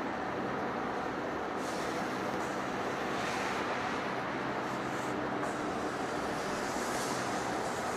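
Heavy face lathe running: a steady mechanical hum and noise with brief hissy rises now and then.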